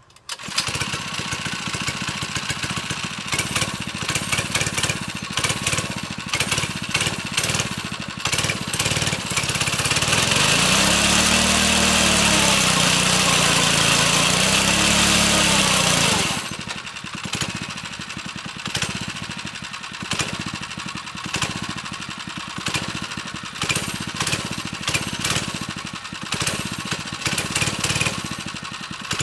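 Manco Thunderbird mini bike's 79cc engine pull-started, catching at once and idling. From about ten seconds in it is revved and held at higher speed for some six seconds, its pitch swelling twice, then it drops back to idle.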